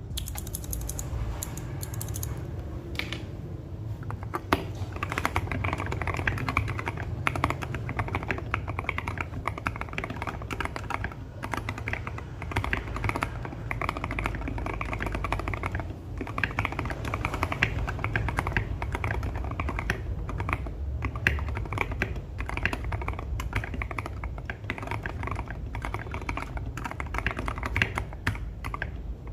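Mechanical keyboard fitted with linear frankenswitches (C3 Kiwi housings with Jwick Yellow stems) being typed on continuously, a dense run of keystroke clacks with a few short pauses.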